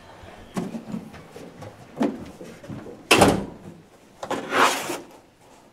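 Cardboard box being handled: a few light knocks, then one sharp thump about three seconds in as it is set down on a bed, and a second later a longer scraping rustle as the cardboard lid is worked loose.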